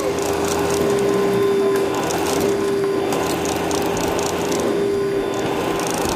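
Vacuum cleaner running with a steady whine, its nozzle rattling and scraping over a wooden floor with many short clicks.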